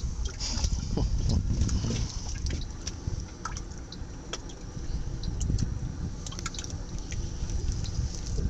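Water dripping and lapping, with scattered small splashes and drips over a steady low rumble.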